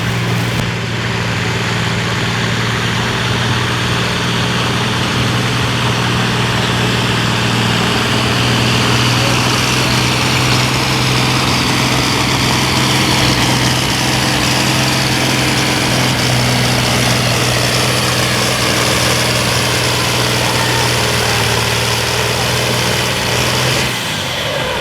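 John Deere 4010 tractor engine running hard under heavy load while pulling a weight-transfer sled, a loud steady drone with a high whine that slowly falls in pitch over the second half. The sound drops off about a second before the end.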